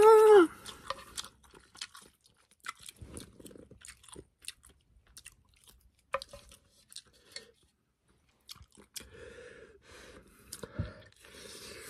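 Close-up wet chewing and mouth clicks of someone eating instant ramyeon noodles. It opens with a short loud vocal cry. Near the end there are denser, noisier stretches as noodles are sucked in from chopsticks.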